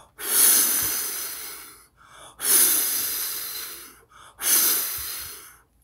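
A man's voice imitating a fierce wind: three long blown whooshes through the mouth, each starting loud and trailing off, with short gaps between.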